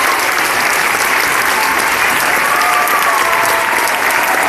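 Audience applause, steady dense clapping with no break.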